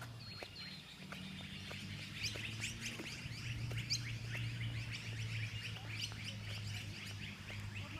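Many small birds chirping rapidly and continuously, over a steady low hum.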